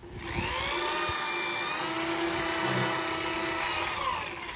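Electric drill spinning up, running steadily as it bores a drainage hole through the bottom of a fired-clay basin, then winding down near the end.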